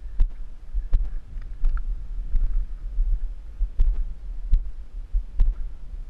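Wind buffeting the camera microphone as a steady low rumble, with irregular dull knocks about once a second.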